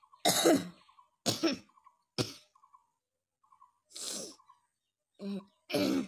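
A person coughing: about six separate coughs, each under a second, spaced irregularly with short pauses between them.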